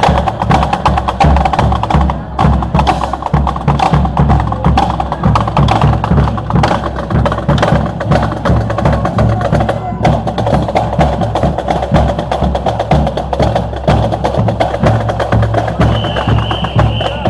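Marching band drumline playing a street cadence: fast, crisp drum strokes over regular bass drum beats. A high held tone comes in near the end.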